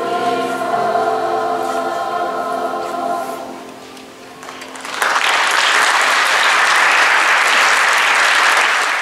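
Children's choir holding the song's final chord, which fades away over the first few seconds. About five seconds in, audience applause breaks out and carries on loudly.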